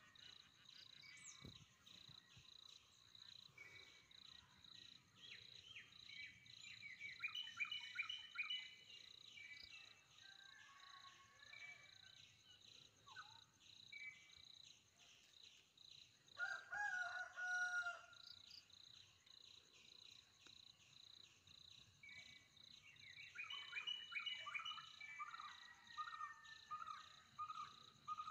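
Tropical woodland ambience: a steady high, fast-pulsing insect trill with several birds calling over it. A louder, lower-pitched call comes about halfway through, and a run of repeated notes near the end.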